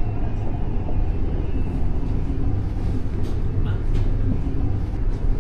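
Passenger train in motion, heard from inside the carriage: a steady low rumble of wheels on the rails, with a few faint clicks.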